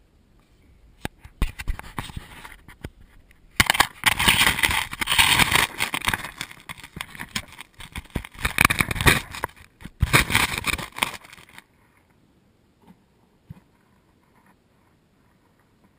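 Close-up handling noise as the camera is gripped, shifted and set down on pebbly gravel: loud scraping, rubbing and crunching of stones and skin against the camera body. It comes in irregular stretches for about ten seconds, then stops about three quarters of the way through, leaving a few faint clicks.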